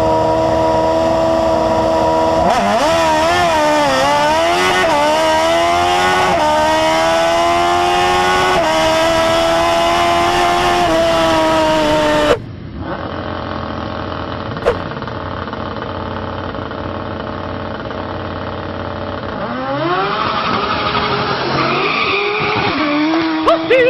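Turbocharged Suzuki Hayabusa inline-four in a golf cart, heard onboard: engine held at steady revs, then revs swinging up and down, then climbing steadily through the gears with two brief drops at the shifts. After a sudden cut, a quieter engine runs steadily and then revs up near the end.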